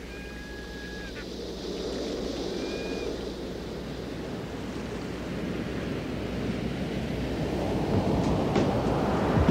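Recorded ocean surf washing in and swelling steadily louder as the intro of a song, with two short high cries in the first few seconds. The first sharp struck notes of the music begin near the end.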